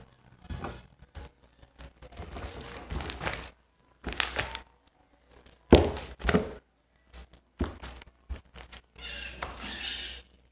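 Homemade slime being kneaded and pulled apart by hand, in irregular bursts of sticky tearing and squishing with a few sharp knocks. The slime is not fully activated yet.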